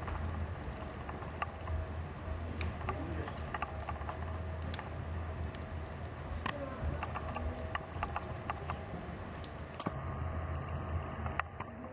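Wood fire crackling: split logs burning with irregular sharp pops and snaps, over a low steady hum.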